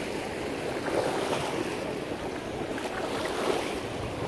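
Sea surf washing and sloshing around people wading waist-deep, steady throughout, with wind rumbling on the microphone.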